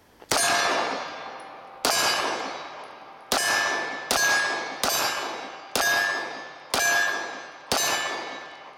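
Walther PPK/S .380 pistol fired eight times at a steady pace, the first shot a double-action pull. After most shots a steel target rings.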